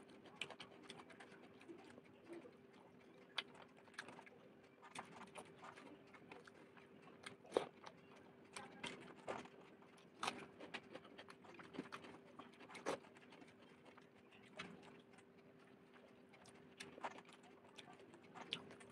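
Quiet, close-up eating sounds of a person eating rice and tilapia fish curry by hand: wet chewing and mouth smacks, heard as many short, irregular clicks. A faint steady hum runs underneath.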